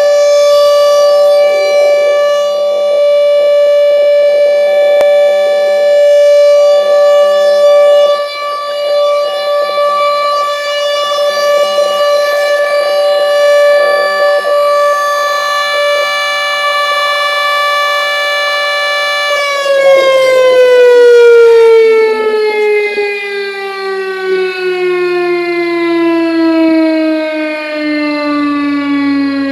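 Oil refinery siren sounding loudly, one steady tone with many overtones for about nineteen seconds. The pitch then begins a slow, even fall, sliding down about an octave by the end, as the siren winds down.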